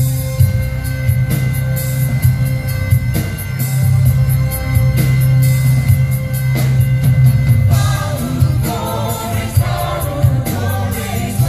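Live band music with held chords and a steady drum beat. About eight seconds in, a mixed group of men's and women's voices starts singing together.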